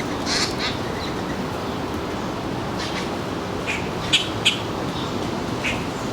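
Backyard birds giving short, sharp calls about seven times, the two loudest close together about four seconds in, over steady background noise.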